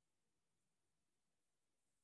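Near silence: a pause between spoken phrases, with nothing but faint background hiss.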